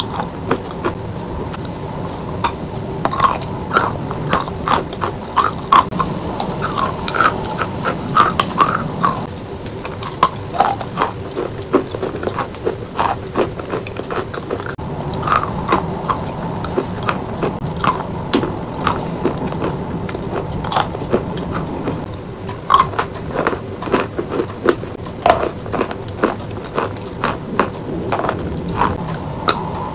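A person chewing and biting chalk coated in wet paste, close to the microphone: irregular sharp crunches, at times several in quick succession.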